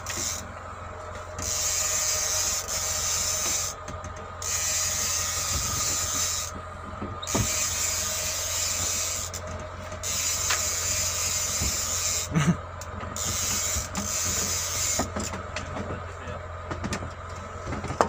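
A steady low hum of the fishing boat's machinery, with a hiss that comes and goes every second or two over it and a couple of short knocks about two-thirds of the way through.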